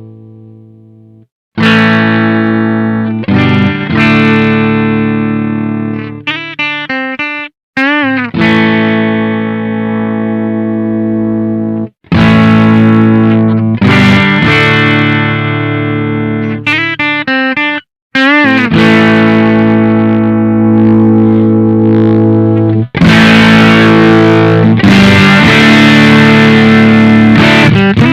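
Electric guitar played through a Witchcraft Velouria FX distortion pedal: distorted chords left to ring, broken by short stops. The same phrase comes twice, each time ending in a wavering bent note, and the sound turns thicker and more saturated in the last few seconds.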